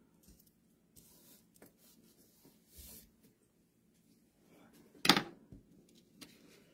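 Die-cut paper pieces and cardstock handled on a tabletop: faint rustles and light taps, with one short, sharp paper rustle about five seconds in.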